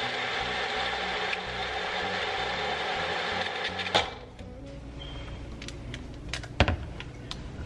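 Magic Bullet personal blender motor running steadily while blending a smoothie, cutting off abruptly with a click about four seconds in as the cup is released. Then a few light clicks and a sharp knock near the end as the blender cup is handled and lifted off the base.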